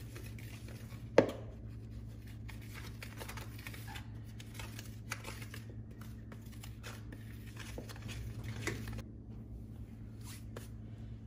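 Wire whisk stirring dry flour and salt in a mixing bowl: soft scratchy strokes with light ticks, and one sharp knock about a second in. A steady low hum runs underneath.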